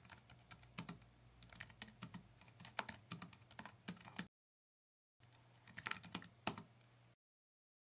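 Keyboard typing sound effect: faint, irregular keystroke clicks in a run of about four seconds, then after a short gap a second, briefer run of clicks.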